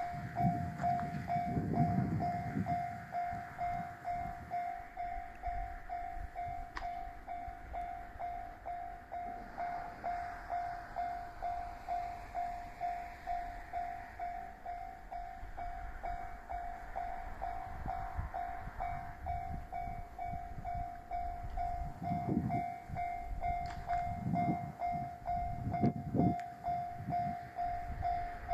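Level-crossing warning bell ringing over and over in a steady rhythm as a yellow diesel railcar passes over the crossing. The train's low rumble is strongest in the first few seconds and comes back about 22 seconds in.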